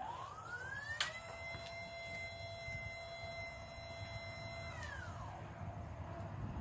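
Haulotte 3522A man lift's hydraulic pump motor whining as the boom moves. It spins up over about a second with a click, holds a steady high whine for about four seconds, then winds down.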